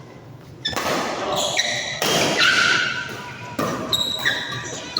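Badminton rally on an indoor court: shoes squeaking sharply on the court floor, mixed with racket hits on the shuttlecock and some voices. It is quieter for the first half-second, then the squeaks and hits come thick and fast.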